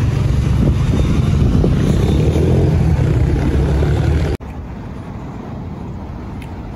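Loud low outdoor rumble, uneven and without any clear tone, that cuts off suddenly about four seconds in, leaving a quieter steady outdoor background.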